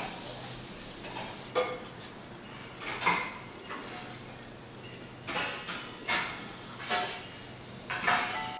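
Stainless steel tumblers and plates clinking as they are set into a wire dish rack. About seven sharp metallic clinks, roughly one a second, each with a short ring.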